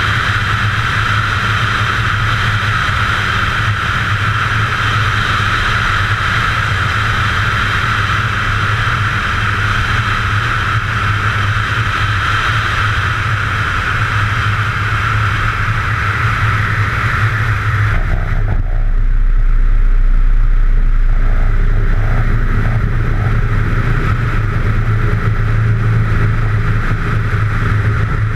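Cirrus SR20's piston engine and propeller running steadily on final approach, heard from a camera mounted outside the aircraft with wind rushing over the microphone. About two-thirds of the way through, the hiss drops away sharply and a low rumble takes over.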